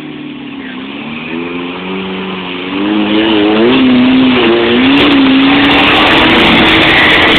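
Four-cylinder 4x4 engine revving hard under load, its pitch climbing and wavering, growing much louder about three seconds in.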